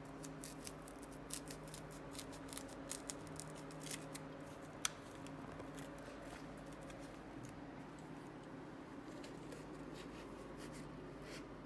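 Light clicks and small ticks from small parts being handled on a padded workbench, thickest in the first half, with one sharper click about five seconds in, over a steady low hum.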